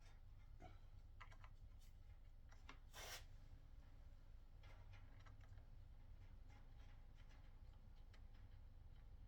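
Faint handling noises over a low steady hum: small scattered clicks and a brief rustle about three seconds in, as a small round DIN plug is worked into its socket.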